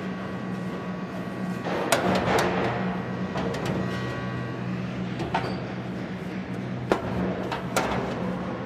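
A few scattered sharp knocks on metal. The strongest comes about two seconds in and rings briefly. They sit over a steady low hum.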